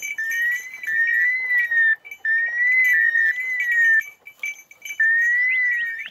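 A high, warbling whistle-like tone, each call lasting under two seconds and repeated about every two seconds with short gaps between.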